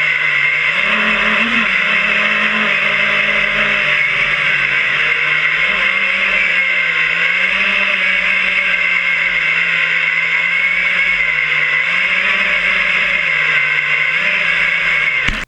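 FPV quadcopter's motors and propellers whining, with the pitch wavering up and down as the throttle changes. The sound cuts off suddenly near the end.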